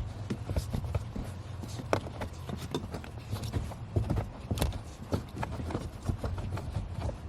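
Irregular light clicks and knocks of hands and tools handling the heater core pipe fittings, over a steady low hum.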